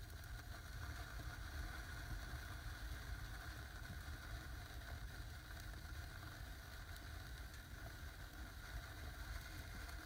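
Small firework fountains and sparklers fizzing steadily as they burn, over a constant low rumble.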